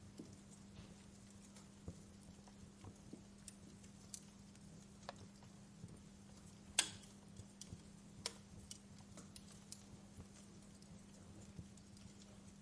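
Wood fire crackling in a fireplace: faint, scattered pops and snaps, one louder snap about halfway through, over a steady low hum.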